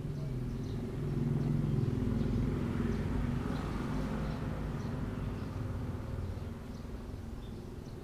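A motor vehicle's engine passing by, swelling about a second in and fading toward the end, with faint high bird chirps over it.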